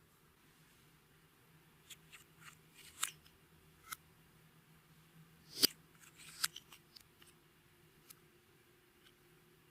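Clear slime being squished and stretched by hand, giving a scatter of sharp clicks and pops. The loudest pop comes a little past halfway.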